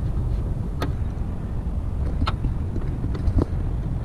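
Three sharp metal clicks, spread over a few seconds, as a socket and nut are worked onto a clutch master cylinder stud at the firewall. A steady low rumble runs underneath.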